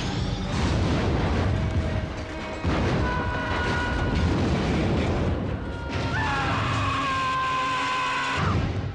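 Movie action soundtrack: an explosion blast and debris crashing down over a road, mixed with a music score whose held high tones come in about three seconds in.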